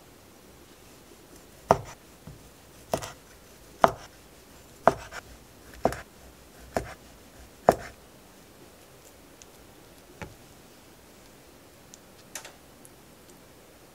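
Kitchen knife chopping a sausage into chunks on a wooden cutting board: about seven sharp knocks, roughly one a second, followed later by a couple of faint taps.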